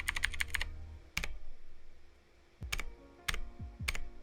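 Keys clicking on an E-YOOSO Z686 mechanical keyboard with clicky blue switches. There is a quick run of presses that stops about half a second in, then four single presses spaced out over the next few seconds.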